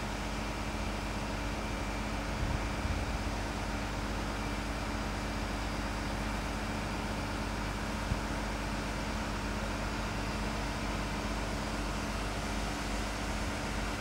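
Truck engine idling steadily, with a brief clatter about two and a half seconds in and a single knock around eight seconds.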